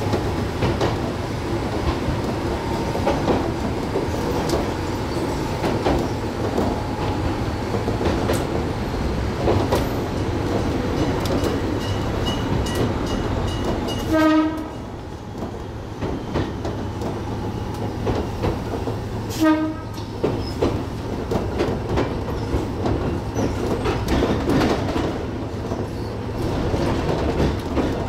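Gakunan Railway electric train running along the line, its wheels rumbling and clicking over the rails. There are two short horn toots, the first about 14 seconds in and the second about five seconds later.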